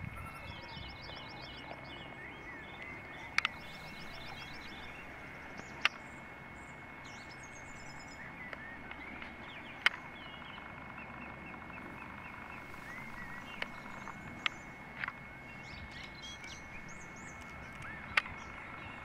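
Small birds chirping and trilling over a steady outdoor hiss, with five sharp clicks spaced a few seconds apart.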